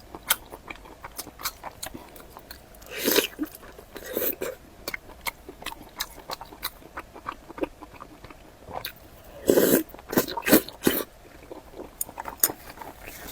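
Close-miked eating sounds: a person biting and chewing food with wet mouth clicks throughout, and louder bites about three seconds in and again around ten seconds.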